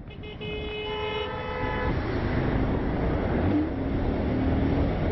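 Vehicle horn honking in one long blast of about two seconds, then steady traffic and wind noise.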